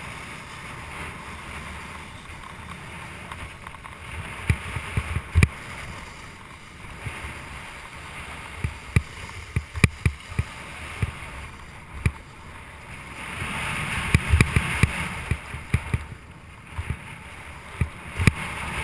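Snowboard sliding over slushy spring snow: a steady scraping hiss from the base and edges, with scattered sharp knocks and clatter as the board rides over ruts and icy patches. The hiss swells about two-thirds of the way through, where the knocks come thickest.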